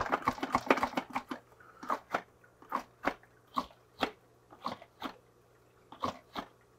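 Repeated clicks of the Top Fin Pro120 canister filter's priming button being pumped by hand, quick at first and then about two a second. The canister is still empty and the pumping fails to start a siphon.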